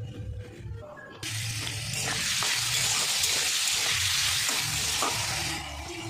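Potato sticks frying in hot oil in a pan: a loud sizzling hiss that starts suddenly about a second in and eases off near the end.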